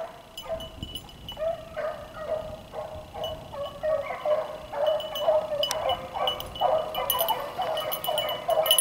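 Beagles baying in quick repeated calls while running a rabbit's scent trail, the voices growing louder from about four seconds in as the hounds come closer.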